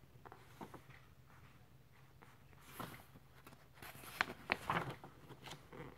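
Soft rustling and light taps of paper as the pages of a book are handled and turned, with a few short sounds bunched from about three to five and a half seconds in.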